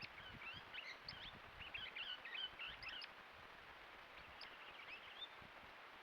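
Swift parrots calling: a quick run of short, high chirping notes for about three seconds, then a few scattered chirps a little later, faint over a low background hiss.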